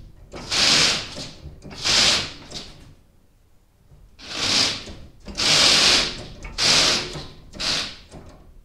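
Steering turned back and forth with the truck's weight on its wheels: front tyres scrubbing on the shop floor in a series of rasping swishes, three, a pause of about a second, then four more.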